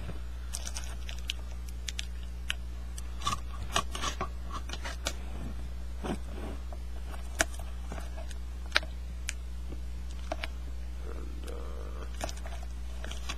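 Cardboard product box being handled and opened: irregular scrapes, rustles and sharp clicks over a steady low hum.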